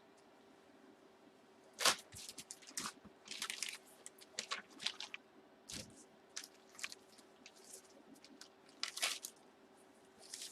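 Plastic bag crinkling and rustling in irregular bursts, with a few sharp clicks, as hands work it open to get the card out; the sharpest click comes about two seconds in.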